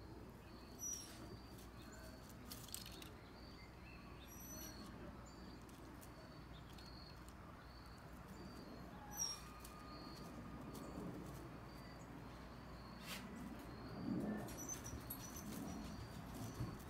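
Faint outdoor ambience: an insect chirping in an even, repeating rhythm, a few short high bird chirps, and soft rustling of squirrels scuffling through the ground cover, loudest about fourteen seconds in.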